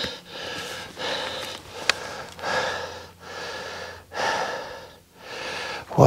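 A person's heavy breathing close to the microphone: a run of about six loud breaths, in and out roughly once a second. There is a single sharp click about two seconds in.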